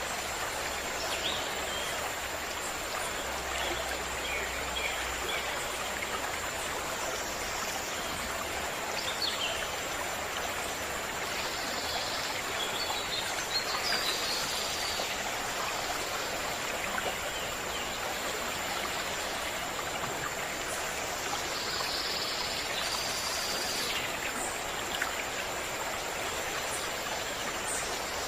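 Stream of running water flowing steadily, with a few brief bird calls now and then.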